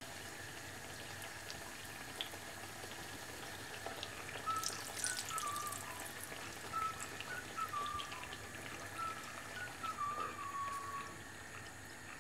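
Oil sizzling and crackling softly as kachoris deep-fry in a pan, with a brief flurry of crackles about four to five seconds in. A faint thin whistle-like tone wavers in pitch through the middle of the stretch.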